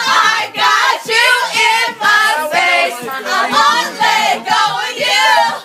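A group of voices singing loudly together in a steady rhythm, with music underneath.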